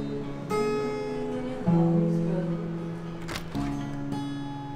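Taylor acoustic guitar played by hand: three chords plucked and left to ring, with a brief scrape of fingers on the strings just before the last chord.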